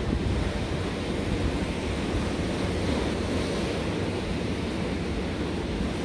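Steady rush of wind buffeting the microphone, over the low wash of stormy sea surf.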